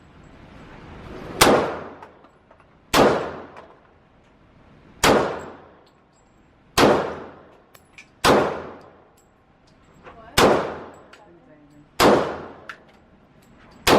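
.40-calibre pistol fired slowly, seven shots about one and a half to two seconds apart, each with a long ringing echo off the range walls.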